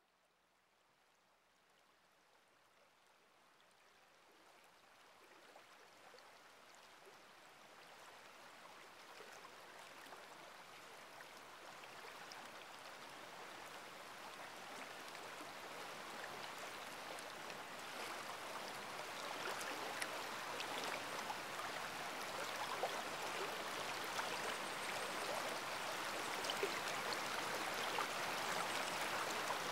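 Rushing water with scattered small drip-like ticks, fading in slowly and growing steadily louder throughout.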